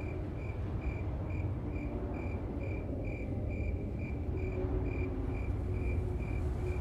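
An insect chirping steadily, short high chirps at about two a second, over a low rumble.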